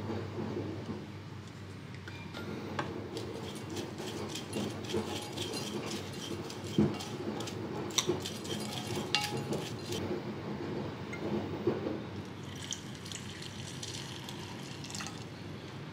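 A spoon stirring rolled oats in a glass saucepan, clicking and scraping against the glass, then water poured into the pan from a measuring jug near the end.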